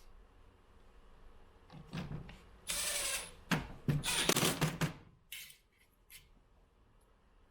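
Clatter and knocks from parts and tools being handled as a soundbar is reassembled: a few separate bursts of noise, the loudest about three to five seconds in, with quiet stretches between.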